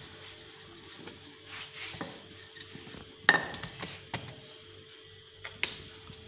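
Hands patting and pressing soft dough flat on a floured silicone baking mat, with a few light knocks on the work surface, the loudest about three seconds in. A faint steady hum runs underneath.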